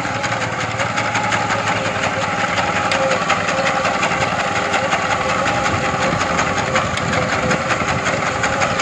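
Walk-behind paddy reaper's small engine running steadily as the machine cuts standing rice, with a fast, even rattle over the engine note.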